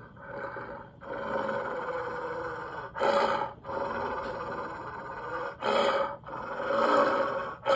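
Cartoon wolf's vocal sound effects: a run of separate roaring, throaty calls with short breaks between them, the loudest about three seconds in and again near six seconds.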